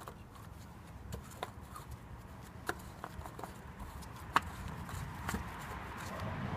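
Oil filler cap on a Toyota RAV4's engine being handled and screwed shut, giving a few sharp, separate plastic clicks about a second apart over a low steady hum.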